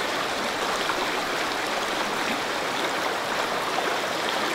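A fast-flowing river rushing steadily, a continuous even wash of water sound.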